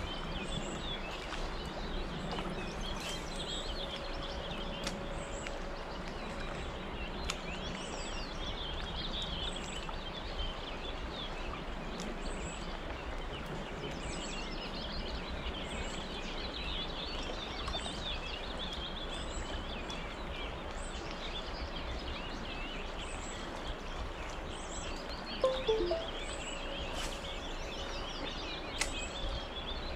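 Small birds singing and chirping over a steady background hiss, with one brief louder sound near the end.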